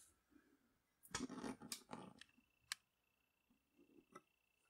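Near silence, broken by faint clicks and rustling of something being handled about a second in, and a few single faint clicks later on.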